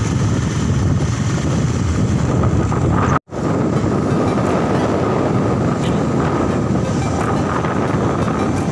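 Riding noise from a motorcycle in traffic: wind rushing over the microphone with a steady engine and road rumble. The sound cuts out for a split second about three seconds in, then carries on the same.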